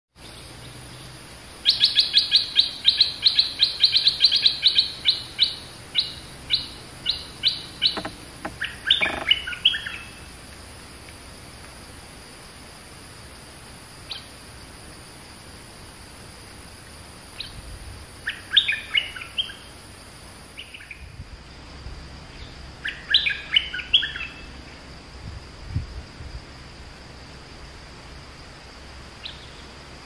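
Nok dok taeng, the Thai cage songbird, calling: a fast run of sharp repeated notes that slows and spaces out, followed later by two short bursts of quick jumbled notes.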